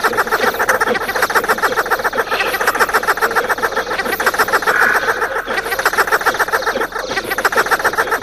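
Electroacoustic tape music: a dense, steady train of rapid pulses, about ten a second, forming a rattling, croak-like texture.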